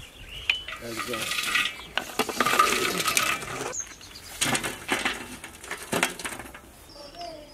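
Lumps of charcoal clattering as they are scooped with a metal ladle and tipped onto the steel lid of a pot in a pit oven. A long rattle in the first half gives way to a few separate sharp knocks.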